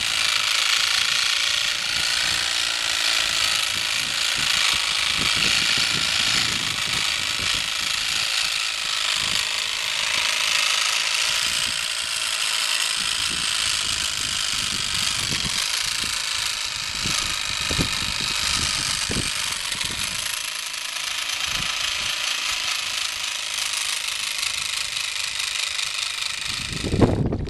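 Steady mechanical running noise, like a machine or engine at work, with occasional knocks; it cuts off abruptly near the end.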